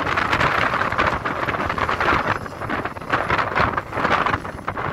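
Hidromek 410LC UHD excavator's diesel engine and hydraulics working as it empties its bucket into a dump truck and swings back, under gusty wind buffeting on the microphone.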